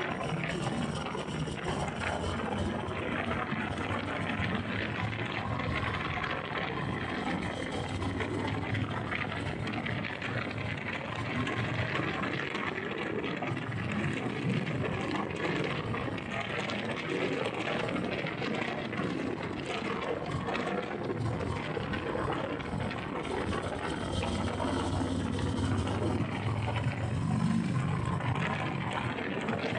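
Harley-Davidson Sport Glide's V-twin engine running while the motorcycle is ridden, largely buried under steady wind rush on the microphone, with the low engine note swelling and easing a few times.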